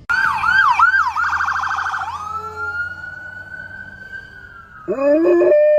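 An electronic siren going through a wailing sweep, then a fast yelp, then a long held tone. Near the end a dog starts howling, rising in pitch.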